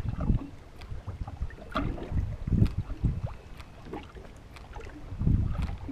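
Water slapping against a small fishing boat's hull in irregular surges, with wind rumbling on the microphone. A few light, sharp clicks come at scattered moments.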